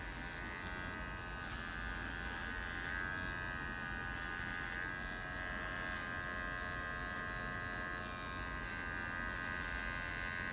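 Cordless electric pet clipper running steadily as its blade shaves the hair on a standard poodle's face and muzzle: an even buzz with a high whine.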